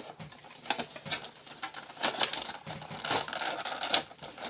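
Trading cards and booster-pack packaging being handled, with irregular rustling and light clicks that grow busier about halfway through.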